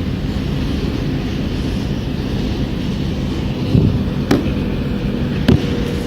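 Launderette washing machines running, a steady low rumble with a hum, with a few short clicks or knocks in the second half.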